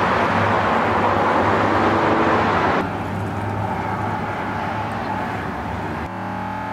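Steady roar of road traffic, which drops in level at a cut a little under three seconds in. Background music starts near the end.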